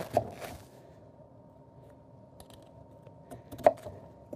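A chef's knife slicing through a raw sweet potato and knocking on a wooden cutting board: a few scattered sharp taps, the loudest about three and a half seconds in and right at the end.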